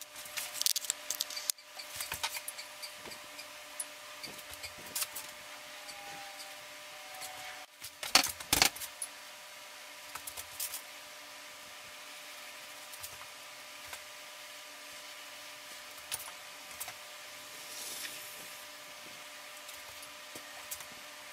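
Clattering and knocking handling noises, loudest in a short cluster about eight seconds in, over a steady electrical hum. After that come only a few light ticks and faint rubbing.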